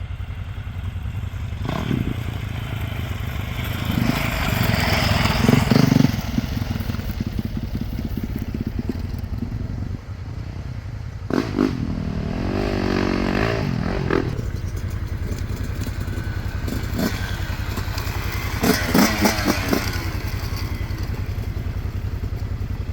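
Yamaha dirt bike engine running along a trail, revving up and easing off several times: rising bursts about four seconds in, again around the middle, and once more near the end.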